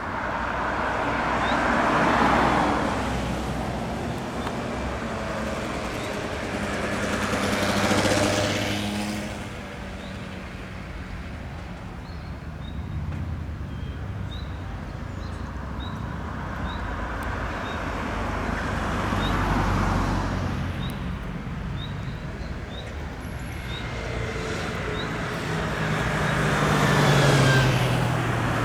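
Road vehicles passing one after another, each swelling and fading over a few seconds, about four passes in all.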